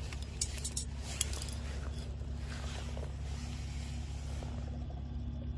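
A few short clicks and scrapes in the first second or so as a freshly caught hairtail is handled on the rock in a fish grip, over a steady low hum.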